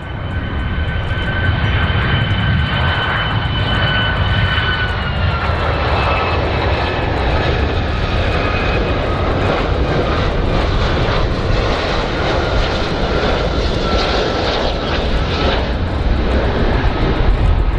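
Boeing 757-200 jet airliner on approach, its turbofan engines running with a steady rumble and a thin high whine that drops slightly in pitch about five seconds in.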